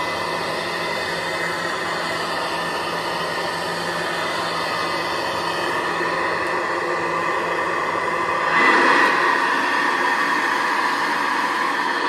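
1952 Hoover Model 62 upright vacuum cleaner running steadily as it is pushed over carpet, a steady motor whir that gets louder about eight and a half seconds in.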